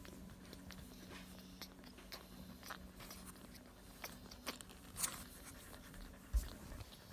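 Faint rustling and small clicks of newborn French bulldog puppies shuffling on cloth in a cardboard box as they are handled, over a faint steady low hum, with one low thump a little after six seconds in.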